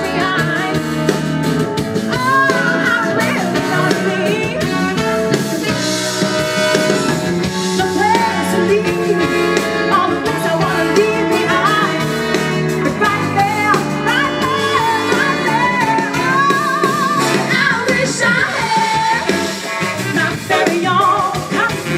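Live soul band playing: a woman singing lead over electric guitar, drum kit and a horn section, with continuous, full-band accompaniment.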